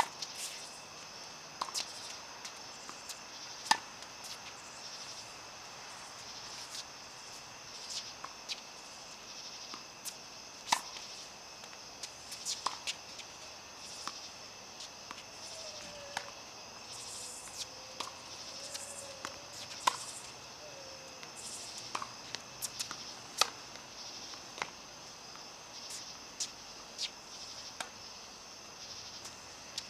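Tennis balls struck by rackets and bouncing on the court: sharp knocks at irregular intervals, some in quick pairs. Under them runs the steady high drone of insects.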